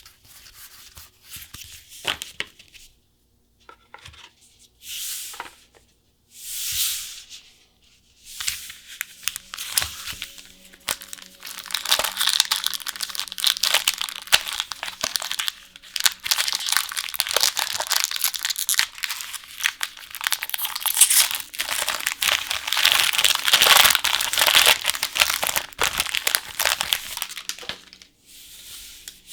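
Packaging wrapper being torn open and crinkled by hand. A few short rustles come first, then from about eight seconds a long stretch of dense crackling and tearing that grows loud and carries on until near the end.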